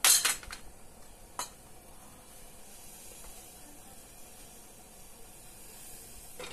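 A steel ladle knocks sharply against a steel pot, the loudest sound, with a lighter clink about a second and a half in. Then quiet wet sloshing as milky porridge is scooped and poured into a small ceramic bowl.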